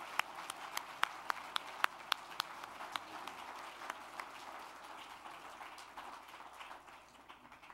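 Audience applauding, with loud single claps close by at about three a second over the first few seconds. The applause fades away near the end.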